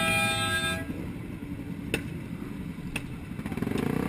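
A vehicle horn sounding steadily, cutting off under a second in. Then low road and engine rumble with two sharp clicks, and near the end an engine rising in pitch.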